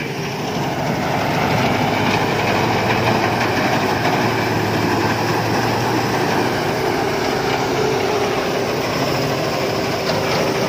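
Rice combine harvester running steadily at work, a continuous engine and machinery drone that grows louder over the first second or two and then holds level.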